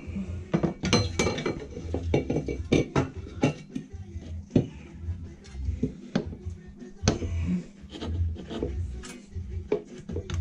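Irregular metallic clinks and knocks, like metal parts being handled and set down.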